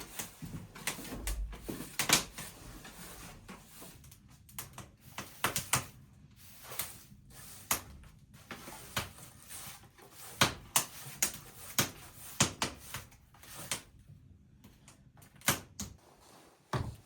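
Irregular knocks and clatter of hard objects being handled, a dozen or so sharp hits with short pauses between them.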